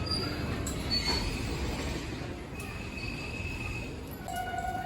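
Enoden (Enoshima Electric Railway) train running on the rails: a steady rumble with high-pitched wheel squeals that come and go. A lower, steadier tone sets in about four seconds in.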